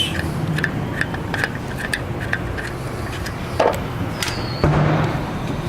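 Small clicks, scrapes and a knock of a screwdriver working the T20 Torx screws and freeing a Holden VT Commodore's ABS module, with a sharper knock about two-thirds of the way through. A steady low hum from the car runs underneath.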